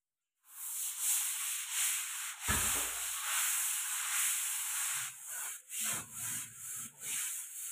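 A stiff brush scrubbing a hard bathroom surface in rough, uneven strokes, with a dull bump about two and a half seconds in.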